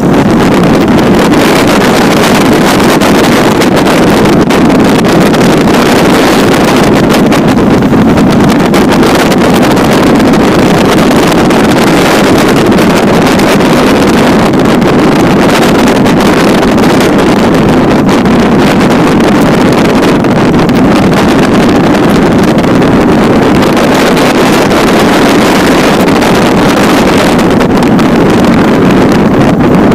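Aviat Husky A-1B's Lycoming engine and propeller running steadily as the plane rolls on grass sod, with wind buffeting a microphone mounted outside under the fuselage.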